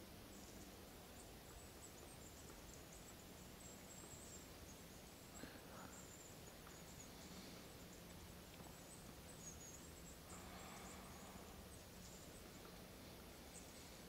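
Near silence: faint outdoor woodland background, with a few soft, brief noises.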